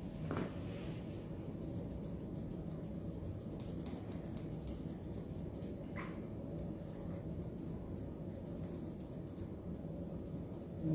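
Grooming scissors snipping a dog's facial fur: a long run of quick, crisp snips, over a steady low hum.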